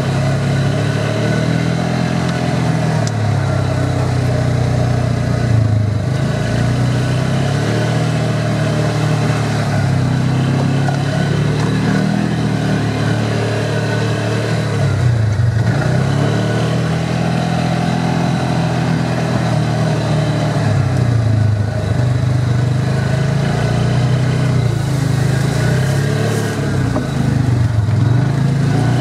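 Polaris Ranger side-by-side's engine running under changing throttle, its pitch rising and falling several times as it drives.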